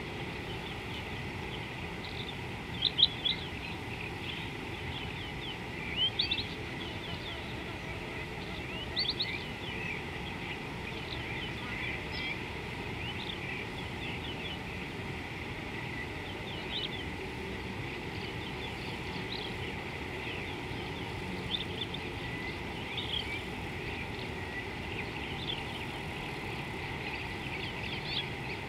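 Birds chirping in short, high calls scattered throughout, the loudest bursts about three, six and nine seconds in, over a steady low background hiss.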